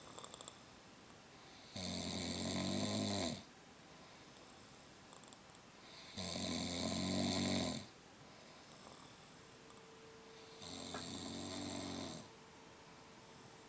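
Someone asleep snoring loudly and rhythmically: three long, rattling snores, each about a second and a half, coming roughly every four and a half seconds with quiet breathing between.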